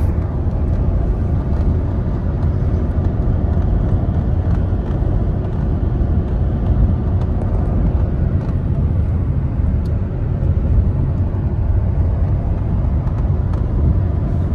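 Steady low rumble of a moving car heard from inside the cabin: engine and road noise at a constant cruising pace.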